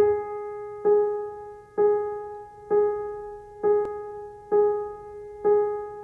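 Background music: a single piano-like keyboard note struck over and over, about once a second, each strike ringing and fading before the next.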